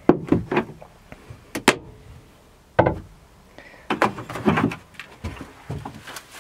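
Irregular short knocks and clatters from a plastic bucket of wood shavings, hung on a wire handle, being handled and bumped around the wooden toilet bench.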